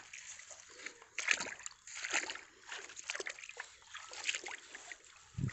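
Wet pond weed being pulled about in a mesh net: irregular rustling and splashing, loudest a little over a second in and again at about two seconds.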